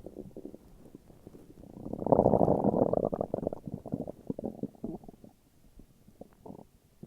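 A person's stomach growling: faint gurgles, then a loud bubbling rumble that swells about two seconds in and dies away over the next three seconds, with a few small gurgles near the end.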